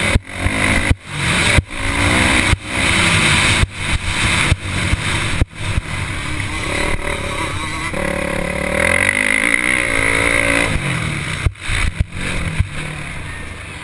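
Motocross bike engine revving hard, heard from the bike, its pitch rising and falling with the throttle and cutting out sharply for an instant about a dozen times. Wind noise runs over it throughout.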